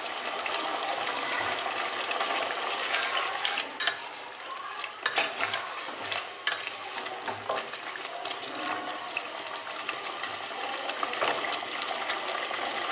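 Chicken curry in a milk-based gravy sizzling in a hot non-stick kadai while a wooden spatula stirs it, with scraping and light knocks of the spatula against the pan every so often.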